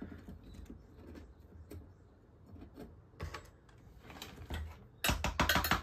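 Faint handling of a glass terrarium cylinder with a few soft knocks, then about five seconds in a loud, dense run of small hard clicks and rattles against the glass.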